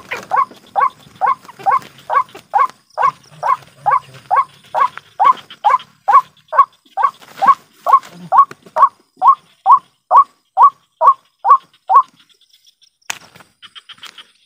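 White-breasted waterhen call repeated in a steady series of short, hooked notes, about two a second, that stops abruptly about twelve seconds in.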